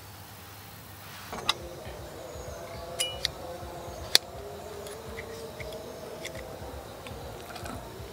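Sharp metallic clinks of a kitchen knife being handled against a ceramic plate and wooden cutting board, four of them in the first few seconds, one with a brief ring. A steady, slightly wavering ringing tone runs underneath from about a second in.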